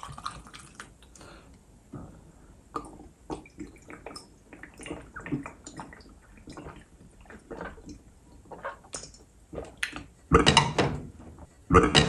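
Vodka poured from a glass bottle into a glass, then a series of gulps as it is drunk straight from the bottle, with two louder sounds near the end.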